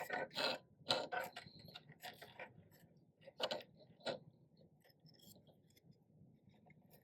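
Light clicks, taps and scrapes of small plastic parts being handled and fitted by hand, thickest in the first four seconds and then thinning to faint ticks.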